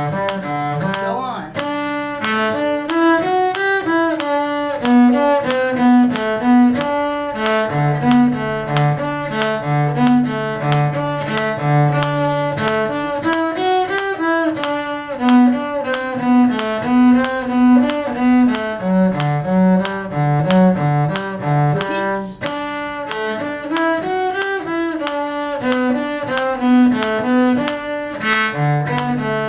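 Bowed string instruments playing a simple tune in a steady beat, a melody line moving above a lower bass line.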